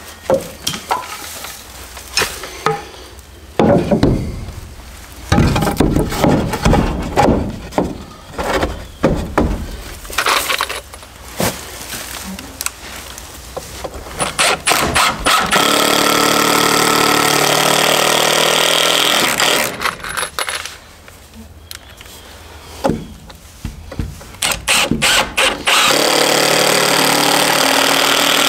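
Woodworking with a power drill: knocks and clatter of boards being handled and fitted, then the drill running steadily twice, for about four seconds just past the middle and for about three seconds near the end.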